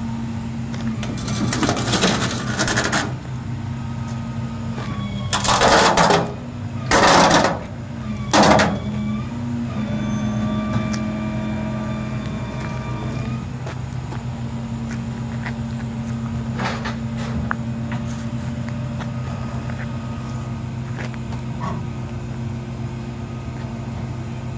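An engine running steadily at a fixed speed, broken in the first nine seconds by four loud bursts of rushing noise, the longest lasting over a second.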